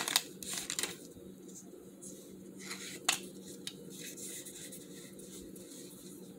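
Foil booster pack wrapper crinkling briefly as it is opened, then quiet handling of the trading cards being slid out, with a couple of light clicks about three seconds in.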